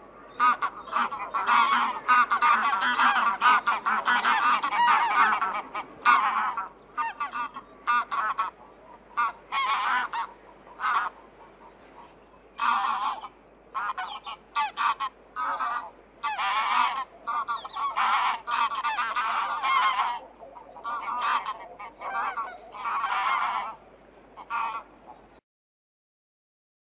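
A flock of geese honking, many calls overlapping in rapid runs with short pauses between groups, cutting off abruptly near the end.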